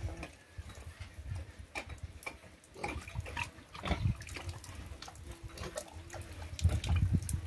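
Pigs grunting and snuffling: a sow and her piglets moving about the pen. Scattered clicks and low rumbles come through, loudest near the end.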